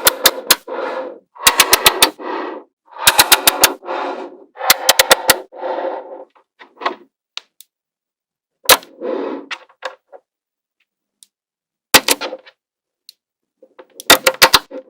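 Small magnetic balls snapping together in quick runs of sharp clicks, each run followed by a short rattle as the balls shift and settle. About half a dozen runs, with a longer pause in the middle.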